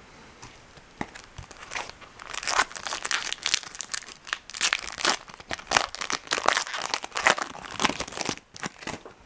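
Trading-card pack wrapper being torn open and crinkled by hand, a dense run of crackling rustles starting about a second in and stopping just before the end.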